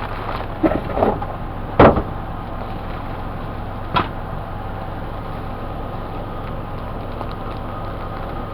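Items being unpacked by hand: a few short rustles about a second in, one sharp knock just under two seconds in, and a lighter click about four seconds in, over a steady background hum.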